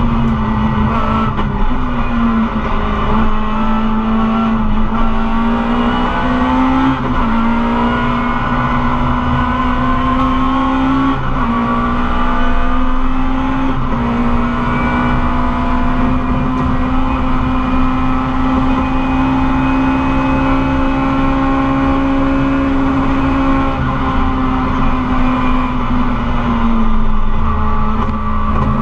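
Rally car engine running hard, heard from inside the cabin. Its pitch holds high with short dips at gear changes about five times in the first half, stays steady through the middle, then falls near the end as the car slows.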